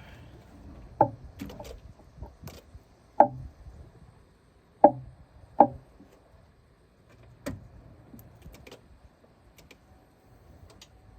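Five sharp knocks at uneven intervals, the loudest two about three and five seconds in, with fainter clicks between them.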